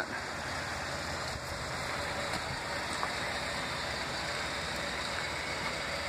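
Steady, even rushing background noise with no distinct events.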